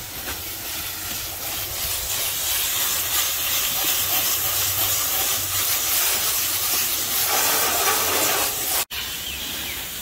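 Garden hose spray nozzle hissing steadily as water is sprayed through a dirt-caked AC condenser coil to clean it. The hiss breaks off for an instant about nine seconds in.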